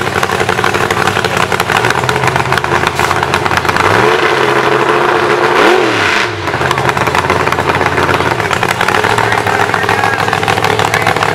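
Mega truck's engine running loud and steady as the truck crawls through the mud pit, revved up and back down twice in quick succession around the middle, then settling back to a steady run.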